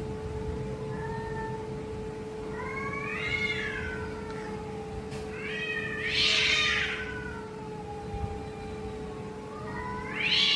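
A domestic cat giving long, drawn-out meows and yowls, four calls rising and falling in pitch. The loudest comes about six seconds in, and another comes near the end. The title calls it an irritable, grumpy cat.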